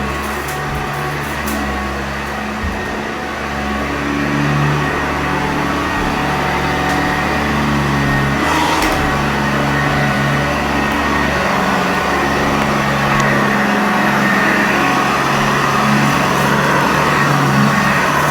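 Sanitaire upright vacuum cleaner running steadily, its motor and brush roll working over carpet, a little louder from about four seconds in.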